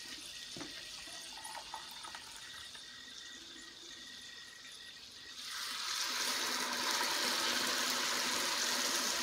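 Boiling water poured from a jug and a mug into a hot Lodge 15¼-inch cast-iron fry pan of chicken and potatoes. A few light knocks at first, then about five and a half seconds in a loud, steady hissing sizzle as the water meets the hot pan.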